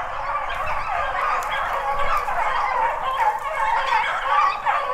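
A pack of beagles giving voice while running a rabbit, many overlapping yelps and bawls with no break.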